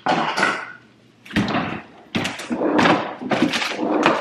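A refrigerator door opening, then a run of knocks and rustles as things are moved about on the shelves inside.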